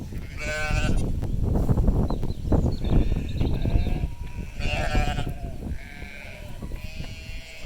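Sheep bleating at lambing: two short calls, about half a second in and about five seconds in, from a newly lambed ewe and her lambs, with fainter calls after the second. Low rustling and thumps, loudest in the first few seconds, run between the calls.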